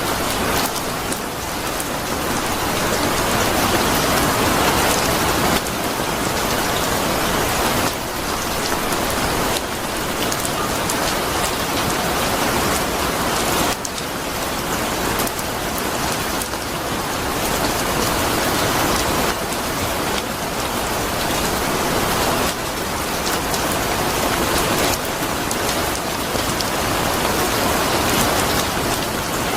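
Steady rain falling on a surface: an even hiss of many drops, with scattered sharper ticks of single drops.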